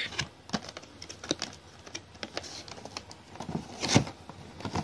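Cardboard box being handled and opened: scattered light taps and scrapes of cardboard, with a sharper knock about four seconds in.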